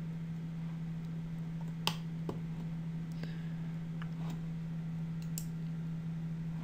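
Soft computer-mouse clicks, a handful scattered over a few seconds, the sharpest about two seconds in, over a steady low hum.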